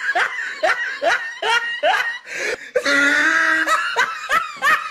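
Loud laughter: a string of short rising 'ha' sounds, about three a second, with a longer held note in the middle before the quick laughs return.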